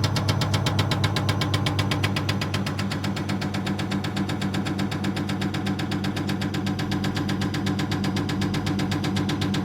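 CR618 injector test bench running with a steady hum and a rapid, even ticking as a Caterpillar 3126B HEUI injector fires on it.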